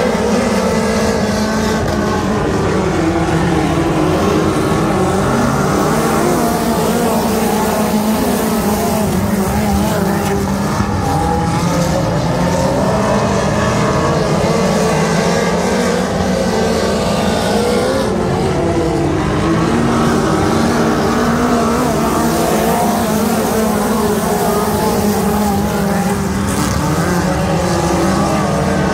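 A field of USAC midget race cars running laps together, their four-cylinder engines a loud, continuous drone whose pitch rises and falls as the pack circles the track.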